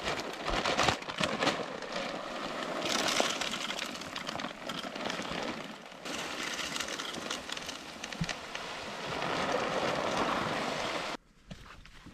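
Steady rustling and crackling of footsteps pushing through dry brush and leaf litter, with many small twig snaps; it cuts off abruptly near the end.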